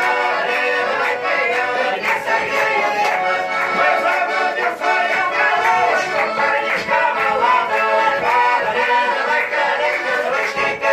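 Accordion playing a traditional folk dance tune.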